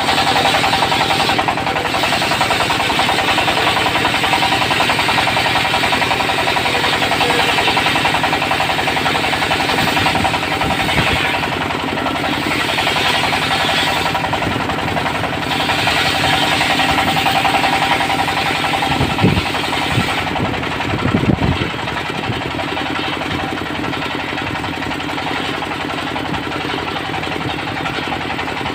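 Diesel engine driving a portable circular sawmill, running steadily with a fast, even knock while the blade cuts teak. A few knocks come about two-thirds of the way through, then the higher sound of the cut fades and the engine runs on.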